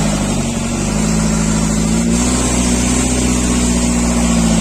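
Diesel engine of a JCB 3CX backhoe loader running steadily, its engine speed dipping slightly and then rising again about a second in.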